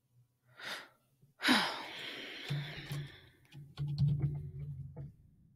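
A woman's long audible sigh about a second and a half in, after a shorter breath, then low murmuring under her breath with a few faint clicks.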